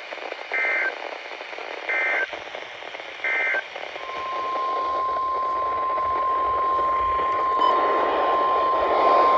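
NOAA Weather Radio emergency alert signal over radio static: three short bursts of warbling SAME header data tones about a second and a half apart, then about four seconds in the steady 1050 Hz weather-radio warning alarm tone begins. It marks the start of a new warning broadcast, here a flash flood warning.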